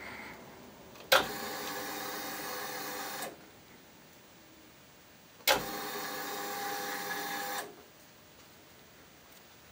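Ducati Monster's electric fuel pump buzzing twice, about two seconds each time, each run opening with a sharp click, with no sound of the starter cranking the engine. The bike won't crank, which the owner suspects is an electrical fault after a spark from the battery.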